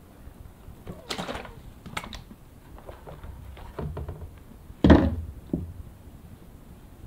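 Handling of a plastic water bottle and small plant pots: a brief spatter of water from the bottle about a second in, a few light knocks, then a loud thunk about five seconds in as the bottle is set down on the floor, followed by a smaller knock.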